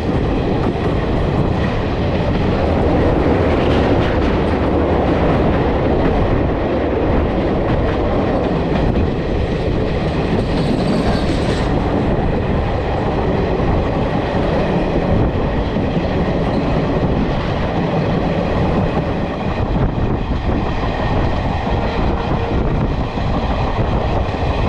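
Kulik Express passenger train running on the rails, heard from inside the coach: a loud, steady rumble with the clatter of the wheels over the track.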